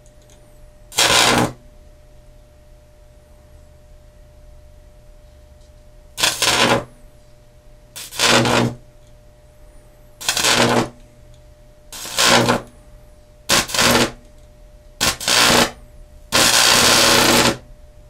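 Microwave-oven transformer's high-voltage secondary (about 2000 V) drawing electric arcs through the air to a hand-held electrode. There are about eight loud arcs of roughly half a second each, the last one lasting over a second, with a steady transformer hum between them.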